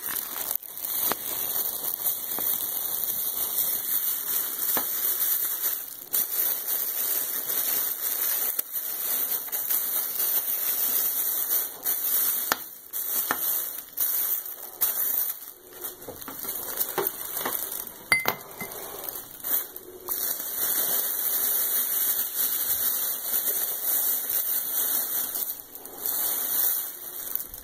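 Thin plastic shopping bag crinkling and rustling close up as it is untied, pulled open and rummaged through by hand, with frequent brief pauses.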